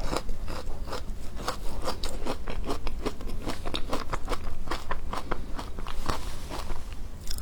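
Close-up crunching and chewing of frozen matcha ice: rapid, irregular, sharp crunches, several a second.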